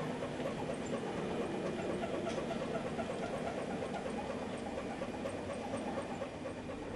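HO scale model trains running on the layout: a steady running noise with light, regular clicking of wheels on the track.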